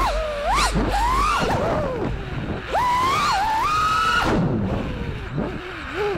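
FPV freestyle quadcopter's brushless motors whining, their pitch swooping up and down sharply with each throttle punch and drop. It holds a high whine from about three to four seconds in, then falls off steeply.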